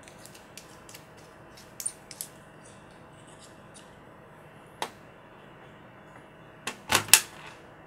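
Sharp clicks and taps from handling a soldering iron handpiece and its tips during a tip change. There are a few small clicks about two seconds in, one about five seconds in, and a louder cluster of three near the end.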